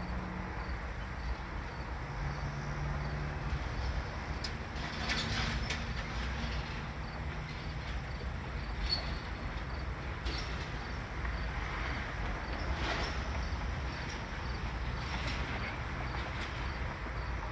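Steady background noise with a low hum and a few faint, brief sounds scattered through it.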